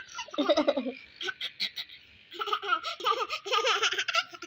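A baby laughing in two bursts: a short one at the start, then a longer run of quick, choppy giggles from about two seconds in.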